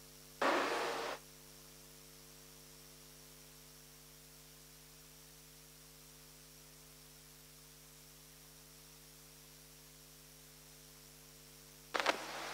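Faint, steady electrical mains hum from the microphone and sound system, with a brief noise just under a second in and another near the end.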